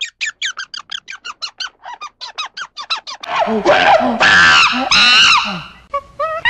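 Grey squirrel chattering: a quick run of short, high chirps, about five a second. About three seconds in it gives way to louder, harsher animal calls that rise and fall in pitch.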